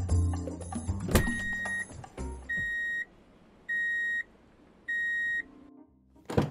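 A Toyota's reverse warning buzzer beeping four times, evenly about once a second, the sign that the car is in reverse gear. Background music plays before the first beep, and a sharp knock comes at the very end.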